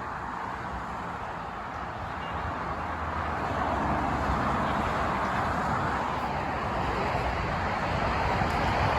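Steady rush of road traffic noise, growing gradually louder.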